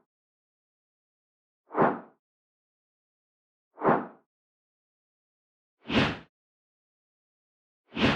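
Four short spin whoosh transition sound effects, about two seconds apart, each a quick swell of rushing noise that fades out fast; the last two are brighter than the first two.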